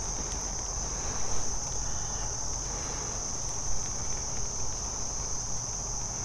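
Steady, high-pitched insect chorus: one continuous unbroken drone that holds at the same pitch throughout.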